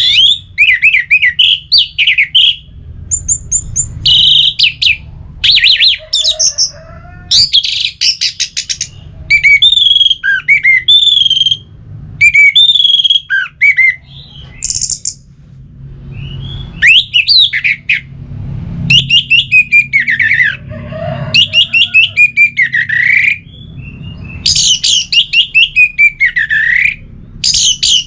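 Orange-headed thrush (anis merah) singing a long, varied song of short, fast phrases: clear whistles and quick runs of rapid trilled notes, with brief pauses between phrases.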